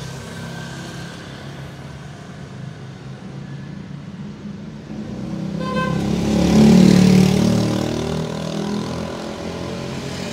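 Motor vehicle engine passing close by: the noise swells to a peak about seven seconds in, then fades, over a steady low engine and traffic hum. A short beep sounds just before the swell.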